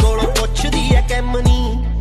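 Music from a Punjabi song: a heavy bass beat hitting about twice a second under a sliding melody line.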